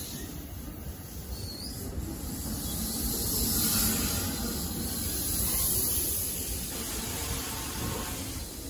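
NJ Transit Multilevel double-decker coaches rolling past along the platform: a steady rumble of wheels on rail under a high hiss, swelling a little about three to four seconds in and again near six seconds.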